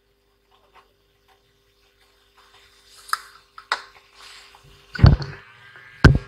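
Handling noises on a workbench: a few light taps and clicks, then two louder thumps about five and six seconds in, over a faint steady hum.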